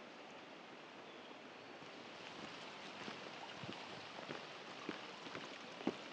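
Steady sound of flowing creek water, with footsteps on rock and gravel starting about two seconds in and growing more frequent, the sharpest steps near the end.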